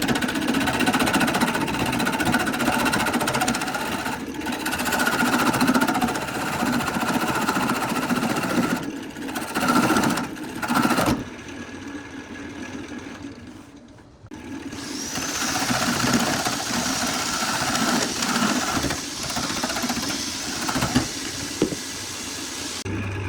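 An electric woodworking power tool running under load, with short breaks. Near the middle it almost stops, then its motor starts again with a rising whine and keeps running.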